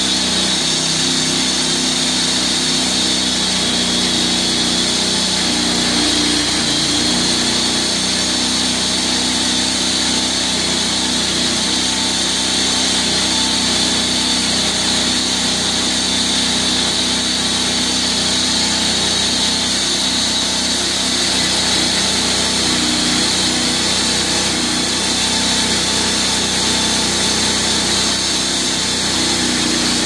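Band sawmill running steadily as its blade cuts lengthwise through a large log: a continuous motor drone with a high whine over it.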